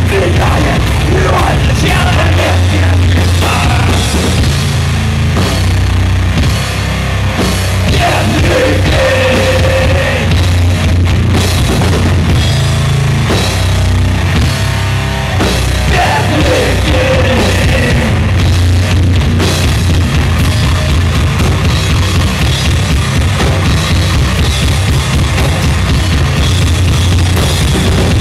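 A heavy rock band playing loud and live, with bass guitar and a drum kit, and vocals at times.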